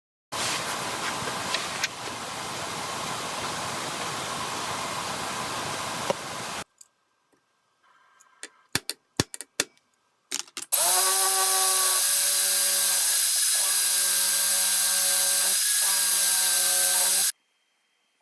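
Power tools at work: a run of harsh, even machining noise for about six seconds that cuts off, a few sharp clicks and knocks, then a motor running with a steady whine for about six and a half seconds that stops suddenly.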